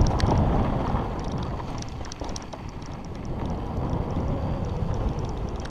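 Wind buffeting the microphone over the rumble of mountain-bike tyres rolling fast on a dirt and gravel trail, with scattered ticks and rattles from the bike.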